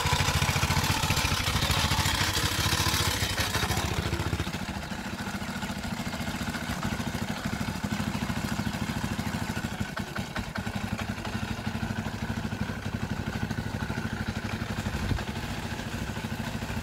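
Small outboard boat motor running, used to drive a water pump. It runs fast and loud for about the first four seconds, then settles to a lower, quieter steady running.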